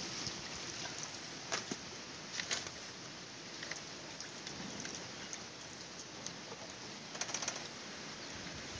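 Quiet outdoor ambience with a steady hiss and scattered short clicks and taps from handling a cut green coconut shell, with a small cluster of taps near the end.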